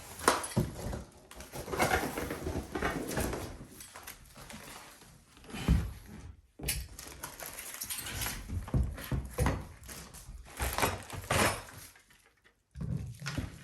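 Bicycle and its packaging being handled: irregular rustling and scraping with several sharp knocks.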